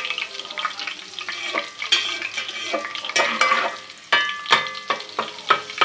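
Ginger-garlic paste frying in hot ghee in a metal cooking pot, sizzling while it is stirred, the utensil scraping and clinking against the pot. In the second half the stirring strokes come quicker, about three a second. The paste is being fried just long enough to cook off its raw taste, not browned.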